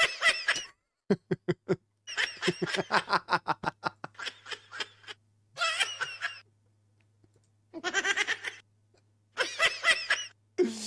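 A kitten giving a string of high, laugh-like cackling cries in short bursts, with brief pauses between them.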